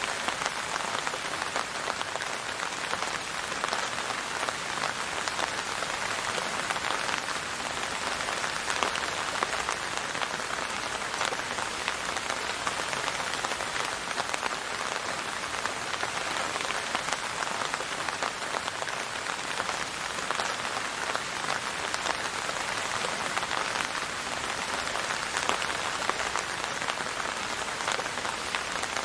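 Steady rain falling, a dense even hiss with the patter of many individual drops.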